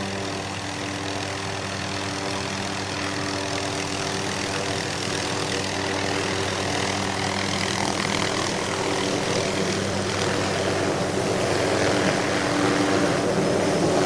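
Helicopter flying: a steady drone of engine and rotor that grows gradually louder.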